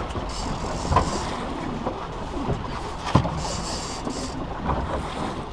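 Steady rumble of a small boat at sea: the outboard motor running under wind and water noise. Two short knocks and a few brief hissing bursts sound over it.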